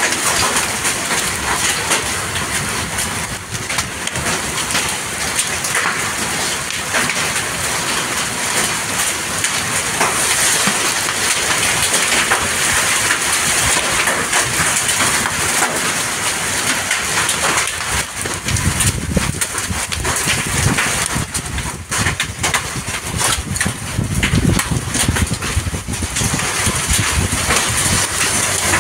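Heavy rain with hail coming down on waterlogged ground: a dense, steady hiss peppered with sharp pattering hits. Twice in the latter part a deeper rumble swells under it.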